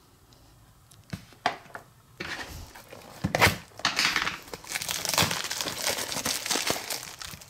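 Packaging of a Funko Mystery Minis blind box being handled and opened: a few light clicks, then from about two seconds in a run of crinkling and tearing.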